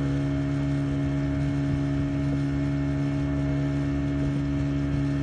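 40 hp outboard motor running steadily at a constant speed while towing, its pitch holding level, over the rush of wake and spray.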